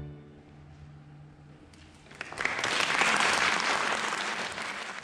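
The last low note of a string ensemble dies away in the hall's reverberation, then an audience breaks into applause about two seconds in, swelling quickly and then slowly tapering off.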